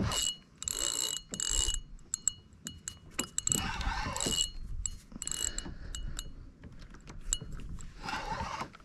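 Fishing reel being cranked in short bursts with a high gear whine and scattered clicks, as line is won back from a heavy fish.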